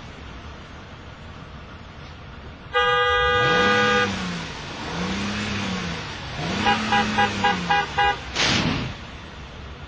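Car horn held for just over a second, then a lower tone rising and falling three times, then a rapid string of about eight short horn beeps. A short, loud burst of noise follows near the end.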